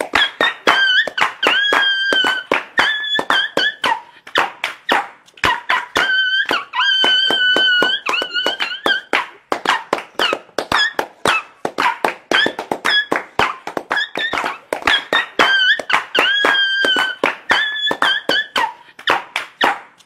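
Meme sound track: a high, wavering crying-like whine that comes and goes in phrases, over fast sharp tapping clicks about four or five a second.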